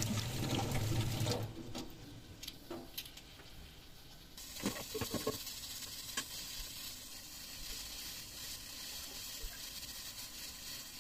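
Kitchen tap running into a steel sink, stopping after about a second and a half. A few light knocks and clatters follow, then a low steady hiss.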